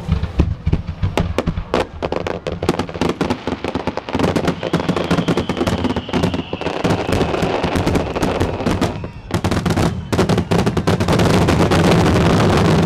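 Fireworks barrage: aerial shells bursting in rapid succession with crackling, many sharp bangs close together, growing into a near-continuous volley near the end. A faint high falling whistle runs through the middle.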